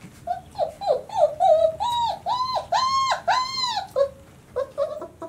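A 26-day-old White Swiss Shepherd puppy whining: a run of about nine short cries, each rising then falling in pitch, growing louder until they stop about four seconds in, followed by a few softer whimpers.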